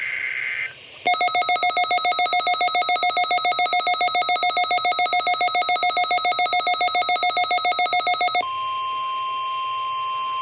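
Emergency Alert System test tones from NOAA Weather Radio: the end of a warbling digital data burst, then after a short break about seven seconds of rapidly pulsing electronic alert beeps at about six a second, then a steady electronic alert tone.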